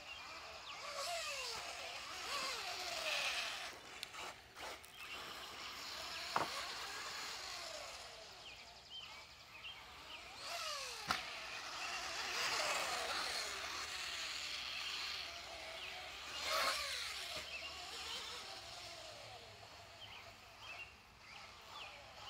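Associated B5M electric RC buggy lapping a dirt track: its motor whines in quick rising and falling glides with the throttle, over the hiss of tyres on dirt, louder and softer as it passes near and far. Two sharp knocks about six and eleven seconds in.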